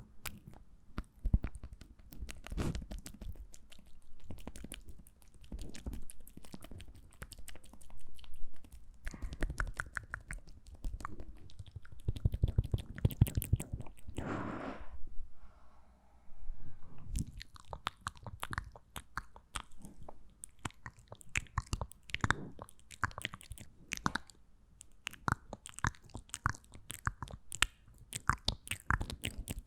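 Close-miked ASMR mouth sounds: dense, irregular wet clicks and smacks of lips and tongue. A brief breathy rush comes about halfway through, then a short lull before the clicking resumes.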